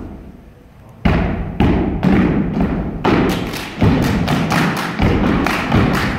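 Step team's foot stomps and hand claps on a wooden stage, echoing in the hall. A pause of about a second comes first, then the stomps and claps resume in an uneven beat, roughly one or two hits a second.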